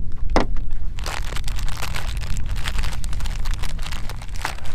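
Crinkling and rustling of small gear being handled, a run of quick crackles from about a second in, over a steady low rumble.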